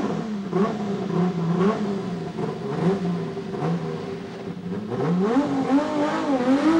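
Ferrari Formula One car's turbocharged V6 being revved in repeated throttle blips while the car stands, its pitch rising and falling again and again. The revving grows louder and busier about five seconds in.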